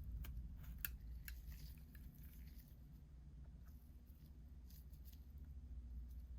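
Faint, sharp clicks of small hand tools on an iPhone being taken apart, several in quick succession in the first two seconds, over a low steady hum.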